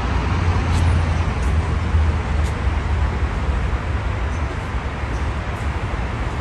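Steady road traffic noise: an even hiss over a low rumble.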